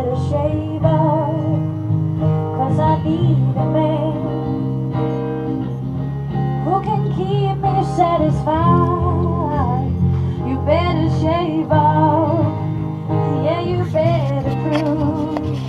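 Song with acoustic guitar and a singing voice over a steady bass line.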